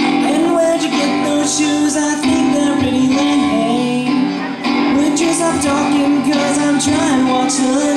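A young man singing while strumming an acoustic guitar, voice and guitar amplified through a microphone and amp.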